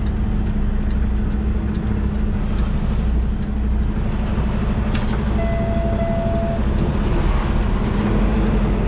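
Semi truck's diesel engine running steadily at low speed while the tractor-trailer is manoeuvred, heard from the cab. About halfway through there is a single steady beep lasting about a second, and there are a couple of sharp clicks.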